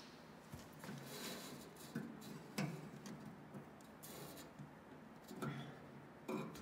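Light irregular clicks and scrapes of metal parts being handled as a fuel sediment bowl assembly is turned by hand onto its threaded fitting.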